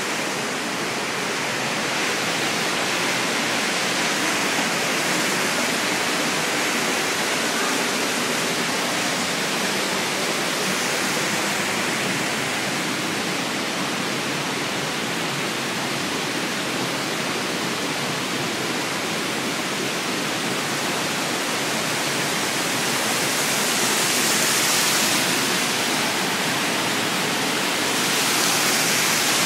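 Waterfall: water pouring over a wide, low fall and rushing across the rocks below, a steady, loud rush of water that swells a little near the end.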